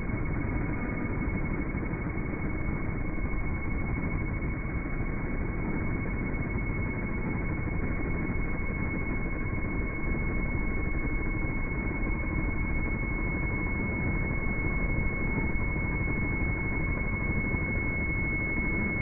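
A steady low mechanical rumble with a thin steady high tone above it, unchanging throughout.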